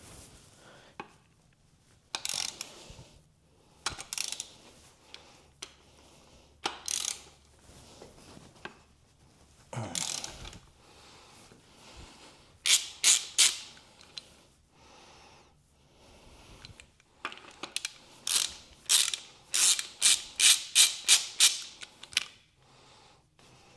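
Socket ratchet loosening the connecting-rod cap nuts on a Ford 302 V8, in short runs of ratcheting strokes with tool clinks between. The strokes come three together about halfway through and as a faster run of about two a second near the end.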